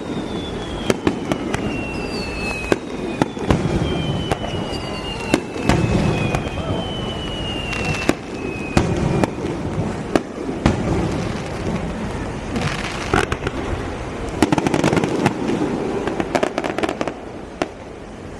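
Aerial fireworks going off: a run of sharp bangs and crackling over a steady low rumble of bursts, with several whistling shells whose whistles fall in pitch.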